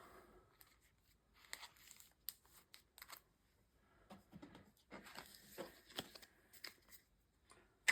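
Trading cards and a foil booster-pack wrapper being handled, with faint, scattered rustles and small clicks.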